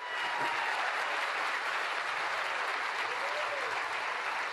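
Audience applauding steadily, as heard in a broadcast speech clip.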